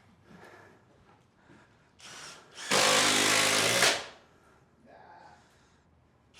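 Kobalt cordless drill/driver running at speed for just over a second, a steady motor whine, after a short softer burst just before it.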